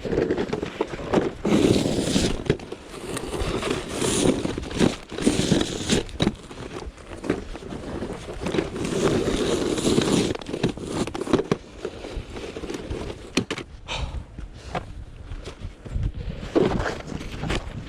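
Snow crunching and scraping in irregular bursts, as it is trodden or worked by hand.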